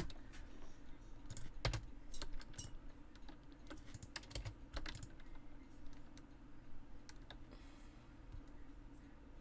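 Computer keyboard being typed on: irregular keystrokes in short runs, thinning out to occasional single taps toward the end.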